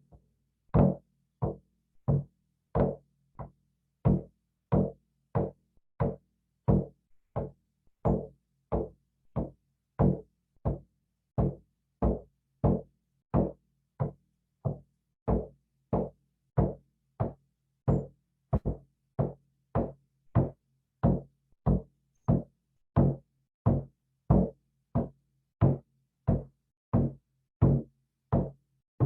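A drum struck in a slow, steady beat, a little under two strikes a second, each stroke ringing low, played as healing drumming.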